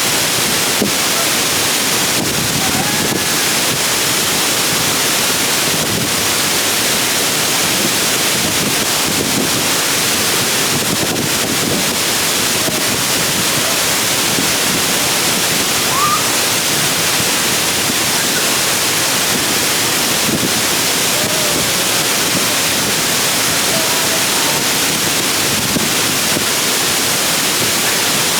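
A waterfall: loud, steady noise of falling water that does not let up.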